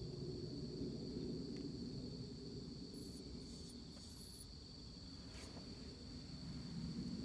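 Insects trilling in a steady, unbroken high chorus, with a low even hum of outdoor background beneath and a few faint high chirps around the middle.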